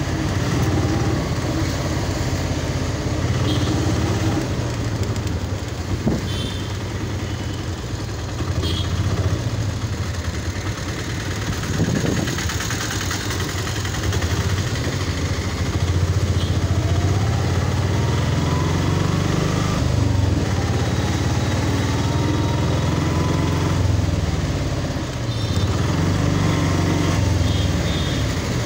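A small motor vehicle's engine running while riding along a road. Its note rises and falls with speed over steady road noise.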